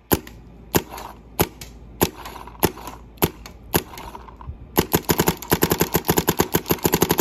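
A Bob Long Reptile paintball marker with the Vcom spool-valve engine firing. It starts with single shots about every half second, then from about two-thirds of the way through it fires a fast string of shots, the marker being set to semi-auto at 12 balls per second.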